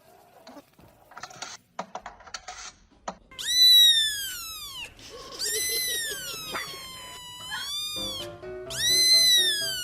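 Cat meowing loudly three times, long drawn-out high calls that each rise briefly then fall in pitch, after a few seconds of light rustling and clicks. Background music comes in near the end.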